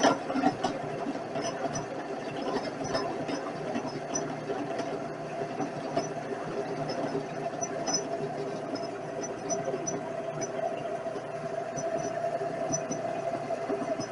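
Vevor 7x14 mini metal lathe running steadily: a continuous mechanical hum with light, irregular ticking over it.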